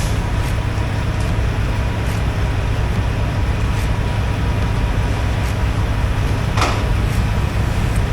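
Semi truck engine and road noise heard from inside the cab while driving: a steady low rumble, with a short hiss about six and a half seconds in.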